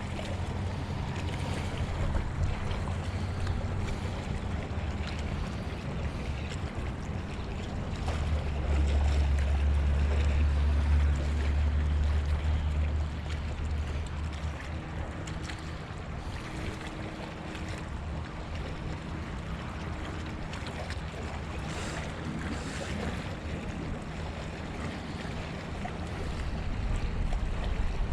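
Wind buffeting the microphone over water moving against the shore, with a heavy low rumble of wind from about eight to fourteen seconds in and a faint steady low hum underneath.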